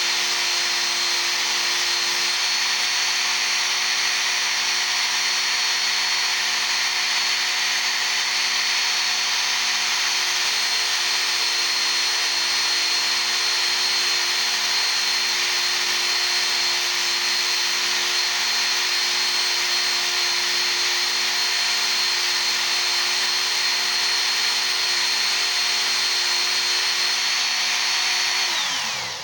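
Work Sharp Ken Onion Edition electric belt sharpener running steadily with a chisel being sharpened on its abrasive belt: a motor whine with a high tone over a steady hiss. Near the end it is switched off and winds down, its pitch falling quickly to a stop.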